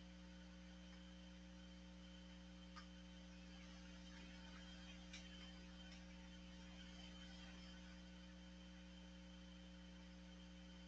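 Near silence: a faint steady electrical hum from the recording chain, with two faint clicks about three and five seconds in.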